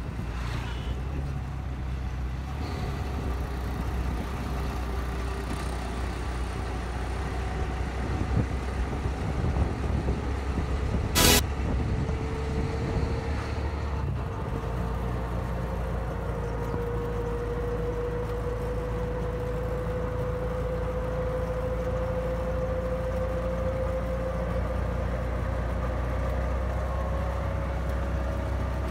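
Riding inside a CNG auto-rickshaw: its small engine running steadily with a low road rumble. A faint whine rises slowly in pitch through the second half, and there is one sharp knock about eleven seconds in.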